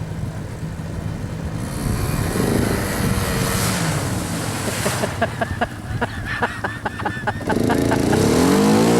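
ATV engines running and revving, their pitch rising and falling, with a quick run of sharp ticks in the middle. A louder rev rises and falls near the end.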